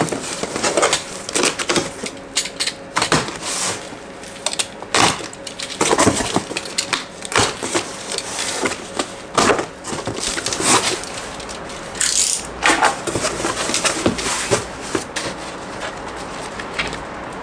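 Cardboard box being unpacked: a utility knife slitting packing tape, then the cardboard flaps pulled open and paper inserts handled, giving an irregular run of scrapes, crackles and rustles.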